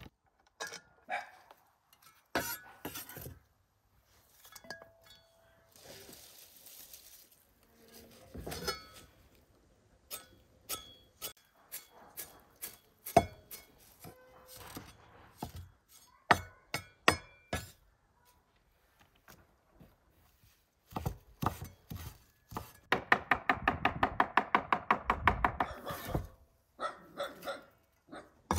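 Cleaver chopping fresh cilantro on a wooden cutting board: scattered single knocks of the blade on the board, then a fast, even run of chops lasting about three seconds near the end.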